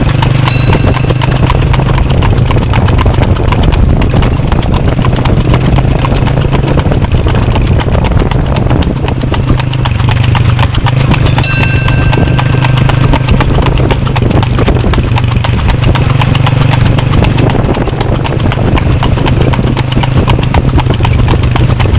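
Hooves of a harnessed cart horse clip-clopping on a paved road at a steady trot, over a steady low hum. A brief high tone sounds just after the start and again about halfway through.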